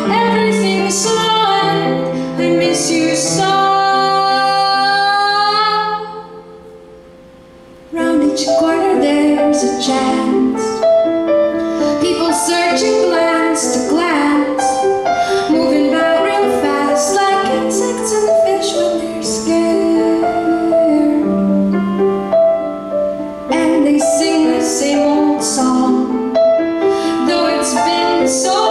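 Woman singing with grand piano accompaniment. She holds a long wavering note, breaks off into about two seconds of near-quiet around six seconds in, then sings on over steady piano chords.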